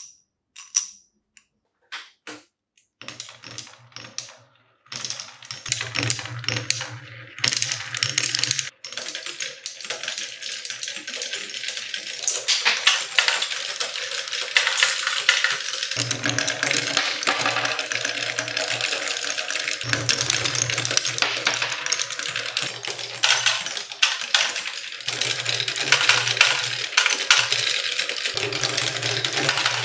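Marbles rolling and clattering down a wooden Quadrilla marble run: a few separate clicks at first, then a dense, steady clatter from about five seconds in. A low rumble comes and goes as the marbles roll along the wooden rails.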